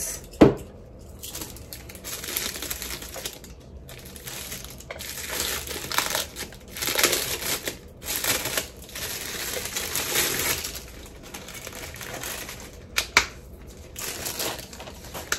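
Thin clear plastic bag crinkling and rustling in uneven bursts as it is handled and pulled off a makeup brush canister, with a few sharp clicks near the end.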